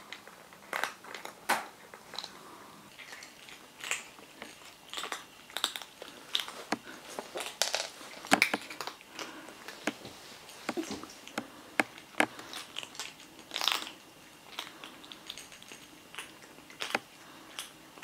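Blue British Shorthair kittens crunching dry kibble: irregular sharp crunches and clicks as they bite and chew.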